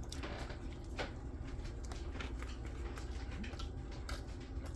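A person biting into and chewing a sauce-dipped chicken finger, heard as a few faint soft clicks and mouth noises over a low steady room hum.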